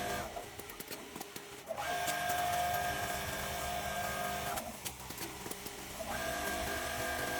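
Industrial template quilting sewing machine running in stitching runs: a steady high whine that cuts off just after the start, runs again for about three seconds, stops, and starts again about six seconds in.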